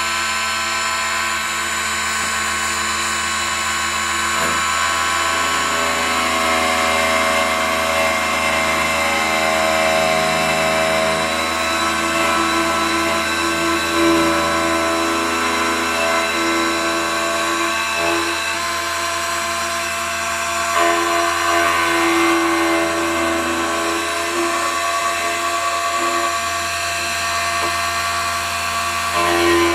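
Multifunction key duplicating machine running: its electric motor and cutter spin steadily while cutting a tubular key, and the tone shifts slightly from time to time as the cutter is worked up and down into the key, with a few brief louder moments.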